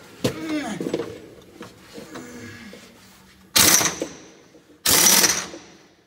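Two short bursts of a power impact wrench working the bolts at the drive shaft yoke, about a second apart, each leaving a brief high ring. Faint humming before them.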